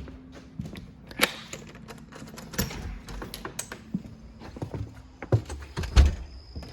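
Irregular knocks and clicks of footsteps and handling, the loudest about six seconds in, over a low steady hum that stops about five seconds in; a faint high steady tone begins near the end.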